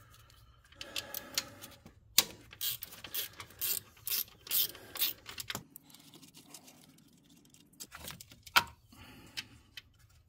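Sharp metallic clicks and clinks of hand tools and small parts being worked on an engine, about two a second for several seconds, then a few scattered clicks near the end.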